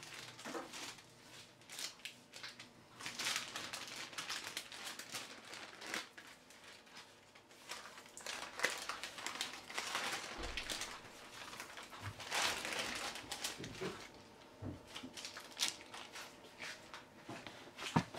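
Baking paper crinkling and rustling in irregular bursts as it is peeled off a sponge cake while the cake is rolled up by hand.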